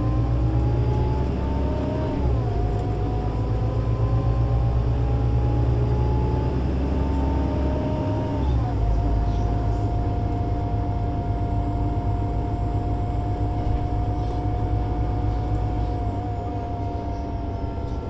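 Solaris Urbino 18 IV articulated bus's DAF diesel engine and Voith Diwa 6 automatic gearbox heard from inside the bus as it accelerates: the engine note climbs and drops back at two upshifts, about two and eight seconds in, then holds steady as the bus cruises, easing slightly near the end.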